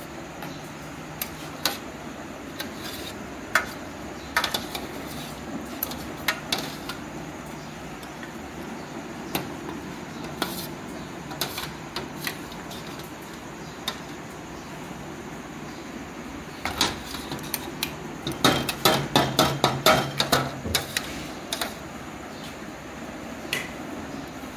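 Steel ladle and spatula clinking and scraping against a large steel serving bowl and small ceramic bowls as food is dished out. Scattered single knocks, then a quick run of about a dozen clinks in the last third, over a steady low hum.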